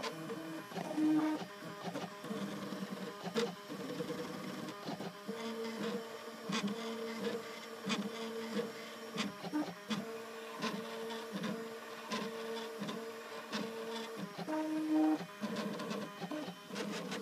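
Stepper motors of a home-built Ultimaker 3D printer driving the print head along its belts and rods mid-print. They whine at one pitch for a second or more, then stop or jump to another pitch as each move changes, with scattered clicks.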